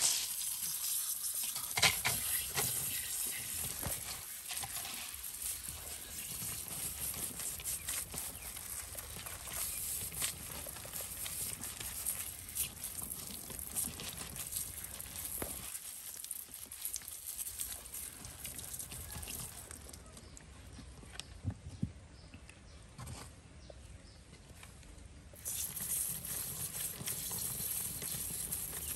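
Scattered small knocks, rustles and crackles of hands handling soil, roots and a plastic pipe pot, over steady outdoor background noise. It drops quieter for a few seconds between about 20 and 25 seconds in.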